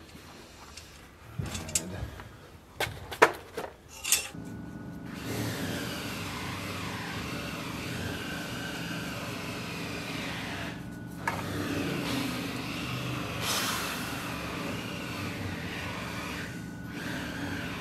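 A few sharp knocks and clicks of metal knife fittings being handled on the workbench, then from about four seconds in a steady mechanical drone with a slowly wavering whine.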